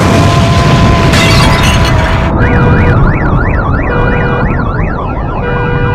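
Loud explosion sound effect with a long rumble and a steady ringing tone over it. About two and a half seconds in, several emergency sirens start wailing over it, their pitch rising and falling about three times a second.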